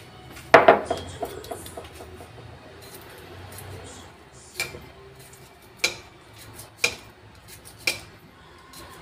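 A loud knock with a short ringing rattle of utensils against a stone mortar about half a second in, then a kitchen knife slicing pieces off a cucumber, four crisp clicks about a second apart.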